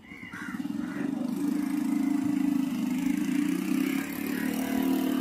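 A motor vehicle's engine running on the road below. It grows louder over the first second or so, then holds steady with an even pulsing drone.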